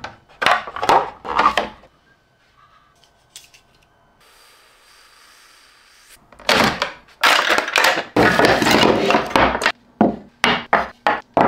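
Knocks, clatter and scraping of rigid 3D-printed PLA parts being handled: pried off a flexed steel build plate and set down on a wooden desk. A cluster of sharp knocks at the start, a quiet stretch of a few seconds, then a longer run of loud scraping and knocking.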